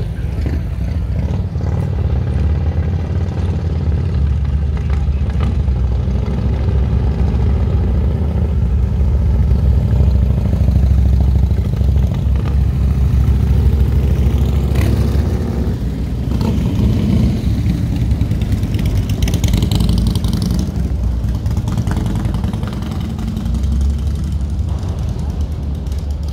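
Steady low engine rumble whose loudness swells and eases. A brief rising whine comes about nineteen seconds in.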